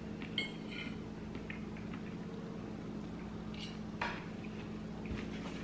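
A metal fork clinking lightly against a plate, with a short ringing clink about half a second in and another click around four seconds, amid soft chewing and small mouth sounds, over a steady low hum.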